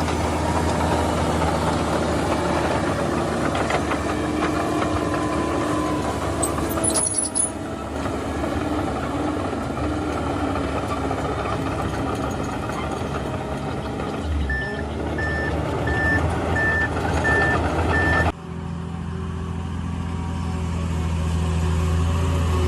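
Heavy diesel machinery running steadily, with a brief high squeal about seven seconds in. Later a reversing alarm beeps about six times, roughly one and a half beeps a second, until the sound changes abruptly.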